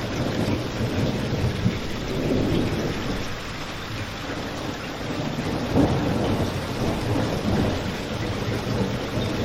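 Steady rain with a low rumble of thunder underneath, swelling briefly a little before six seconds in.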